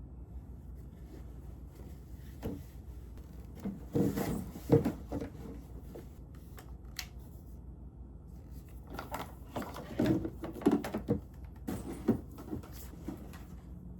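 Objects being handled, with short knocks, clicks and rustles in two clusters: one about four seconds in, the other about ten seconds in.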